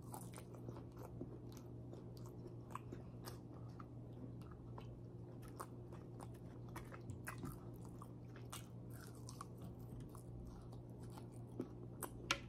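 Close-up chewing and biting of grilled pork chop, with many small wet mouth clicks and smacks. A faint steady hum runs underneath.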